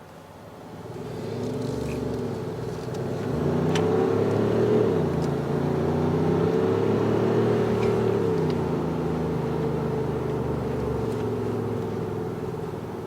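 Synthesized AMG GT engine note played through a JSR Soribak active sound module's speaker on a Kia Carnival minivan: an engine-like drone that rises and falls in pitch like revving. It swells about a second in and eases off slightly near the end. This is an artificial engine sound, not real exhaust.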